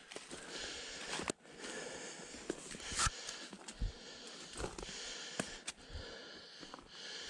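A hiker breathing heavily while climbing a steep slope, with footsteps on pine needles and several sharp cracks of dry twigs underfoot.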